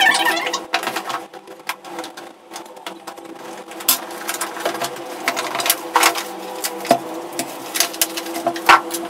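Unboxing handling noise: plastic wrapping rustling, a cardboard box being handled and a conference microphone unit and its cable being pulled out, with a run of clicks and knocks. A steady low tone lies underneath.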